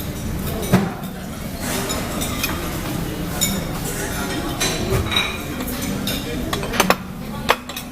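Spoon and cutlery clinking against plates and serving dishes as fried rice is served, a few sharp clinks with the loudest cluster near the end, over a steady background of restaurant chatter.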